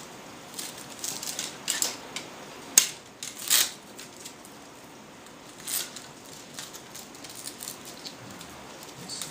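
Hands handling small multicopter frame parts and a battery strap: scattered light clicks, taps and rustles, with a sharp click about three seconds in and a short scraping rasp just after it.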